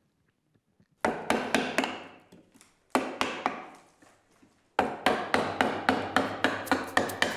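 A round wooden carver's mallet striking a carving gouge into a wooden figure: a run of sharp wooden knocks, about four a second, starting about a second in.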